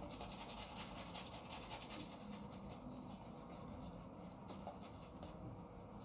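Shaving brush swirling lather over stubble, a faint rapid swishing of wet bristles on skin.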